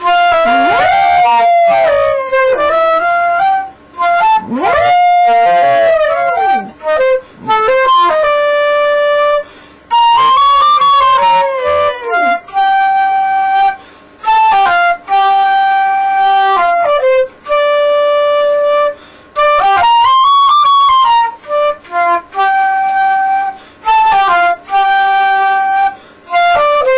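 Flute playing a slow tune of held notes, with a dog howling along in swooping, rising and falling wails, mostly in the first several seconds.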